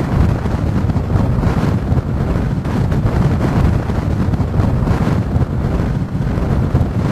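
Strong gusty wind blasting the camera microphone near a dust tornado: a continuous low rumbling buffet with gusts surging every second or two.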